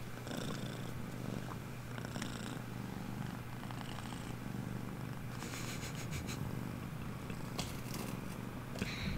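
Balinese kitten purring steadily close to the microphone, with brief rustles several times as she is held and stroked.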